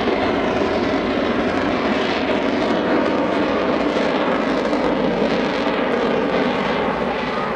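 Taperwing Waco biplane with its radial piston engine and underslung jet engine both running at high power, a loud, steady engine noise as it climbs steeply in an aerobatic manoeuvre.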